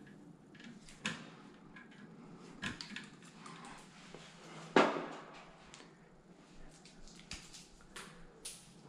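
Scattered light clicks and taps of hands and tools working on a light fixture's wiring while wires are spliced, with one louder knock about five seconds in.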